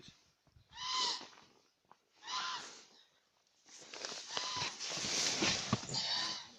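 Repeated whistling squeal from a BMW E34's engine, cold after three months standing in frost. Each squeal lasts about a second and rises then falls in pitch, and a louder rush of noise joins from about four seconds in.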